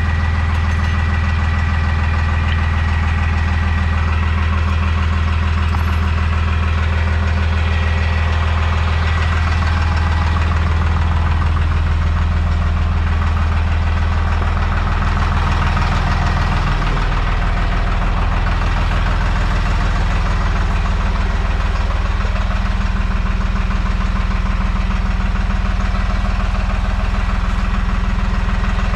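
Deutz-Fahr 55F Keyline tractor's diesel engine running steadily; its note drops lower about halfway through as the engine slows.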